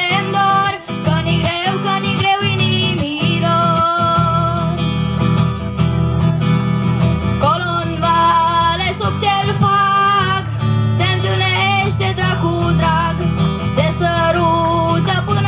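Live music from a stage band through PA loudspeakers: guitar with a voice singing over a steady low backing and beat.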